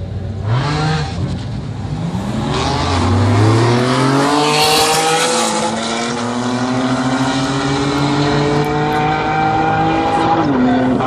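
A Lamborghini Diablo's V12 and a BMW launching side by side in a drag race. A quick rev comes first, then a hard acceleration with the engine note climbing. About five seconds in a gear change drops the pitch, and it climbs again through the next gear.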